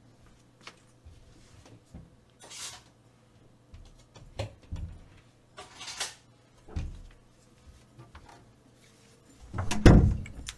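Scattered household handling noises while a pair of metal kitchen tongs is fetched: knocks and rustles of cupboards or drawers being opened and shut, with a louder clatter near the end.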